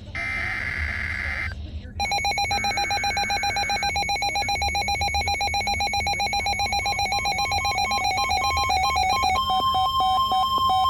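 Emergency Alert System broadcast: the last buzzing data burst of the SAME digital header. About two seconds in, the alert's attention tone starts, a loud, rapidly pulsing two-tone electronic signal that changes its pattern near the end.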